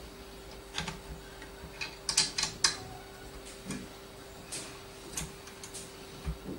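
Metal parts of a microscope boom stand clicking and knocking as the arm and focus mount are handled and positioned, with a quick cluster of sharp clicks about two seconds in and scattered single clicks after. A faint steady hum lies underneath.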